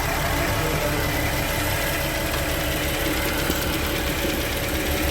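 Porsche Cayenne VR6 engine idling steadily on its first start after a new PCV valve was fitted, running smoothly with the new valve working.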